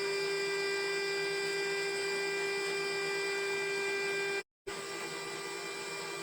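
Sawmill machinery running, a steady whine of unchanging pitch. It breaks off for a split second about four and a half seconds in and resumes slightly quieter.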